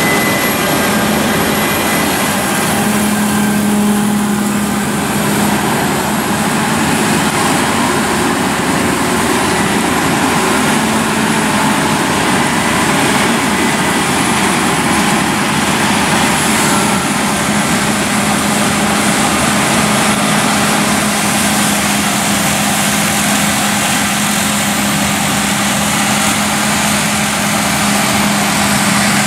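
Claas Lexion 7500 TerraTrac combine harvester threshing soybeans: its diesel engine and threshing machinery running steadily under load, with a steady low hum and a faint high whine that wavers slightly in pitch.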